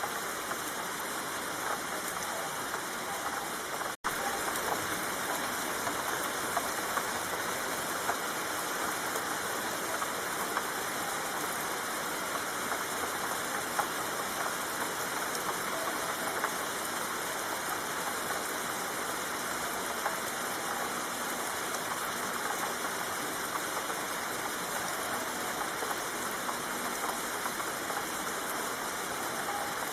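Steady rain falling, an even hiss of drops throughout, with a momentary cut-out about four seconds in.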